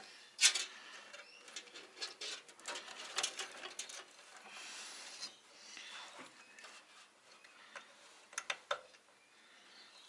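Small plastic clicks, taps and scrapes of front-panel header connectors being fitted onto motherboard pins inside a PC case, with a soft rustle near the middle. The sharpest click comes about half a second in.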